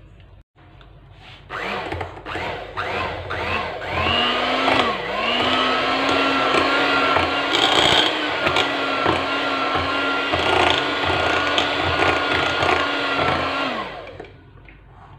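Electric hand mixer beating melted chocolate into whipped cream. It starts in a few short bursts, each rising in pitch, then runs steadily for about ten seconds and winds down near the end.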